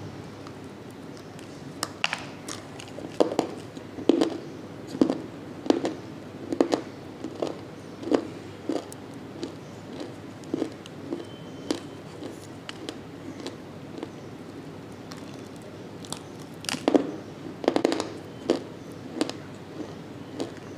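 Chunks of multani mitti (Fuller's earth clay) being bitten and chewed: a sharp bite about two seconds in, then crisp chewing crunches a little more than one a second, and another cluster of louder bites near the end.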